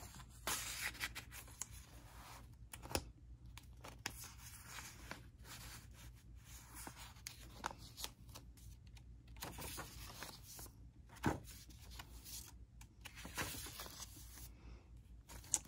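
Paper rustling and scraping as the thick, lace-trimmed pages of a handmade junk journal are turned and an inserted card is handled, with a couple of soft knocks.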